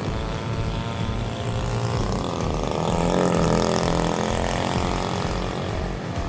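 26cc two-stroke gasoline engine of an RC boat running at speed, its buzzing note rising in pitch and loudness about three seconds in, then easing back down.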